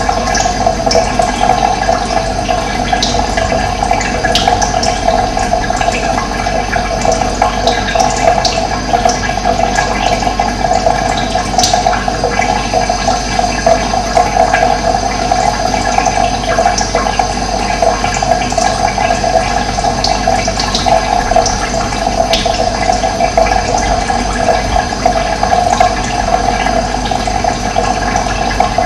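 Running water rushing steadily, with a few brief high chirps here and there.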